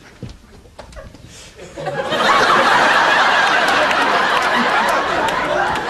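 Studio audience laughing loudly, starting about two seconds in after a quieter moment and going on steadily.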